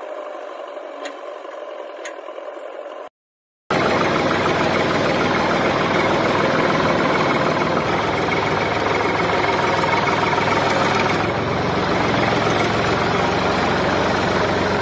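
Motor vehicle engine idling steadily, laid on as a sound effect. For about the first three seconds a thinner, quieter steady hum plays, then the sound cuts out briefly and a louder, fuller engine idle takes over.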